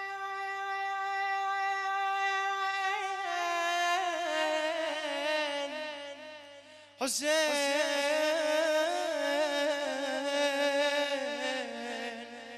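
A man chanting an Iraqi Shia lamentation in long melismatic phrases. He holds one steady note, then wavers downward step by step, breaks off, and starts a second long wavering phrase about seven seconds in that fades near the end. A faint low hum sits underneath.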